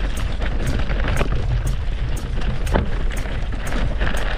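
A mountain bike riding over rocky dirt singletrack, heard from a camera mounted on the bike: tyres crunching over gravel and stones and the bike rattling over the bumps. Wind rumbles steadily on the microphone.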